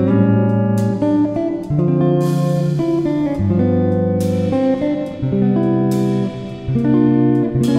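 Background music played on guitar, with plucked and strummed chords changing about once a second.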